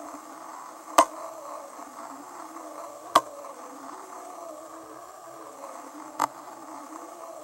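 Zhiyun Rider-M gimbal's motors humming steadily with a wavering pitch. The hum is broken by three sharp crunching clicks: about a second in, at about three seconds, and a little after six seconds. The crunch is a loud noise that the owner says appeared with the 1.51 firmware.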